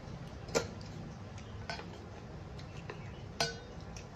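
A metal spoon clinking against a stainless steel curry bowl and plates: two sharp clinks about three seconds apart, the second ringing briefly, with a few lighter taps between.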